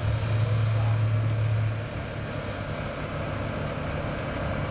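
A steady low engine hum over a broad rushing noise; the hum weakens about two seconds in.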